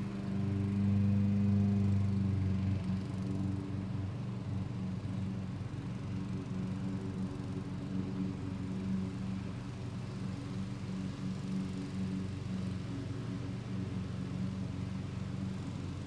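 Lawn mower engine running with a steady hum, a little louder in the first three seconds and then level.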